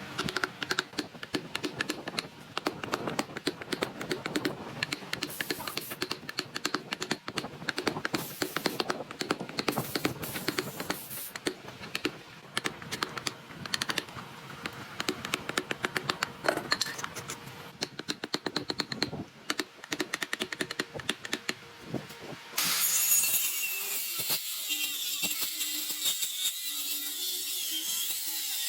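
Rapid, irregular light tapping and clicking of tools on wood for most of the time, then near the end a power tool starts and runs steadily with a high, hissing sound.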